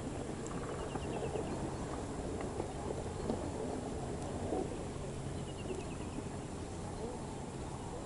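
Steady low outdoor background noise out on open ice, with a faint short descending trill heard twice, once about a second in and again a little after five seconds.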